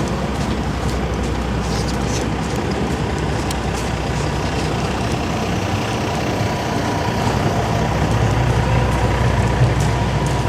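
Steady vehicle rumble with scattered light clicks and rattles, growing a little louder near the end.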